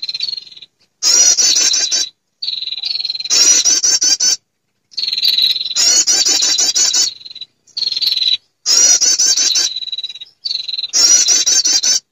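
Lure recording of a female prinia (perenjak) calling for males: loud, rapid, high chirping trills in about five bursts of one to three seconds, each cut off abruptly by a short silence.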